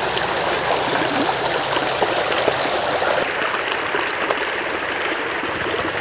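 Shallow river water rushing over stones: a steady, even babble of flowing water.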